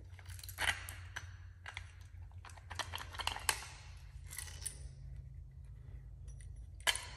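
Strut top hat and lift spacer being handled and fitted together: scattered light clicks and scrapes of the parts against each other, with a sharper click near the end, over a steady low hum.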